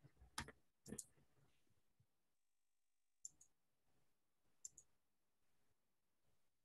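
Near silence broken by a few faint computer mouse clicks, some of them in quick pairs, as tools are picked in a drawing program.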